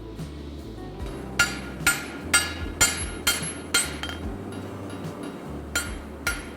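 Hammer blows ringing on steel during forging: six sharp strikes in an even run of about two a second, then two more near the end.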